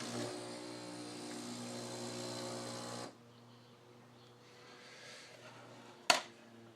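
Breville 800ESXL espresso machine's pump buzzing steadily for about three seconds, then cutting off abruptly. A single sharp click follows about six seconds in.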